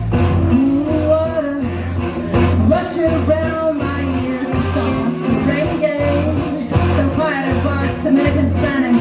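Live rock band playing a song: a sung vocal line over steady bass notes and drums.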